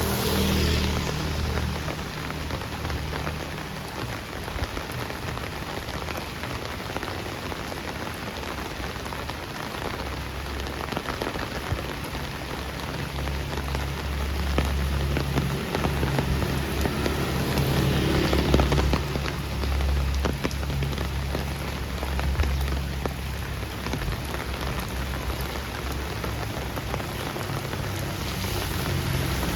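Heavy rain falling steadily on a street, with the low hum of passing traffic swelling and fading about halfway through.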